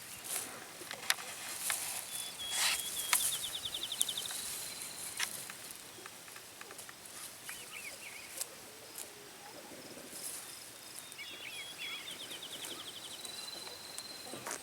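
Pasture ambience with scattered light clicks and rustles from foraging chickens, while a wild songbird sings the same short song twice: a few notes, a fast trill, then a long held whistle.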